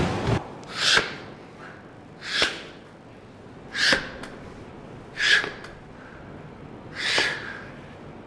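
Five short, sharp exhalations, evenly spaced about a second and a half apart.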